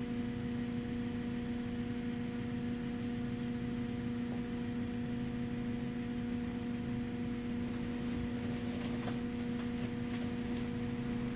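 Steady electric hum inside a Golden Dragon Astar electric city bus: one constant pitched tone with its overtones over a low rumble, with a few faint clicks near the end.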